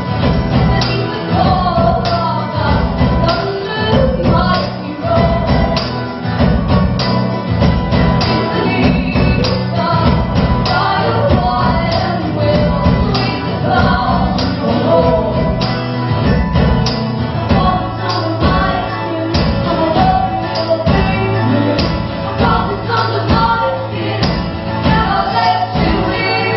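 A live band performing a song: singing over instrumental accompaniment with a steady beat.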